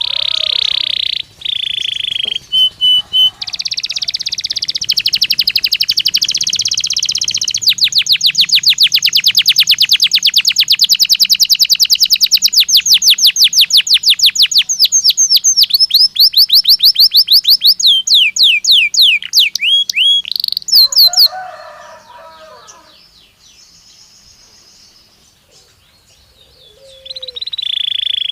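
Belgian canary singing: rolling trills, then a long run of very rapid repeated notes that slows into separate falling notes and stops about three quarters of the way through. After a brief lower call and a quieter pause, the song starts again near the end.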